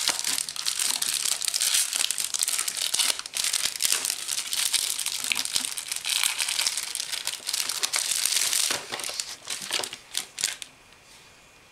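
Crinkling packaging handled as the booklets are unwrapped, a continuous dense crackle with many small sharp crackles. It stops about ten and a half seconds in.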